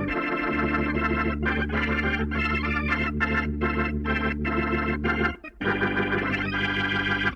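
1980s-style synthesized trumpet riff on an electronic keyboard: rhythmic chord stabs over a held bass note, with a short break about five and a half seconds in. It cuts off abruptly near the end.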